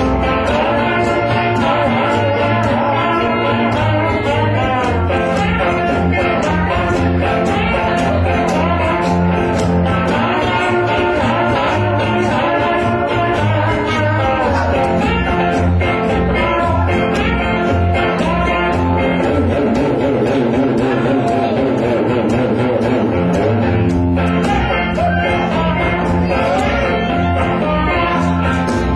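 Small band playing blues live: two electric guitars over an upright double bass.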